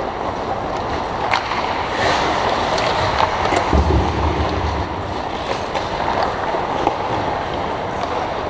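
Ice hockey play on a rink: a steady hiss of skates on the ice with scattered sharp clacks of sticks and puck, and a brief low rumble about four seconds in.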